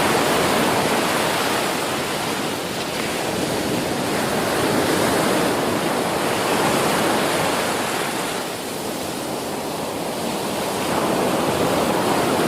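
Rushing floodwater: a loud, steady wash of water noise that eases slightly twice.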